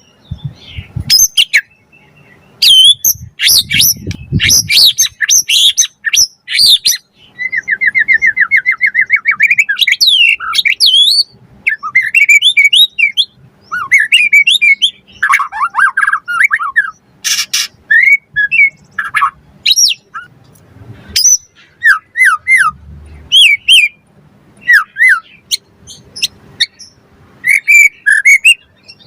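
White-rumped shama singing a loud, varied song of whistled phrases, quick up-and-down slurs and a fast rattling trill.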